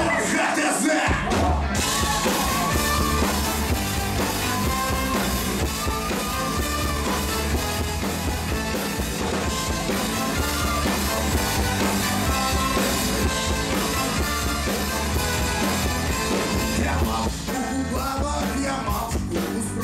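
Live rock band playing loud, with a male lead singer; drums and bass come in about a second in and the full band carries on.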